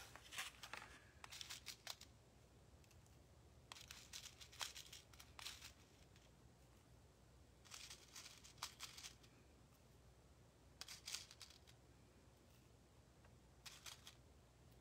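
Faint clicking and rustling of fingers picking loose sequins out of a plastic compartment case and dropping them into a small shaker pocket, in short bursts every few seconds over a low steady room hum.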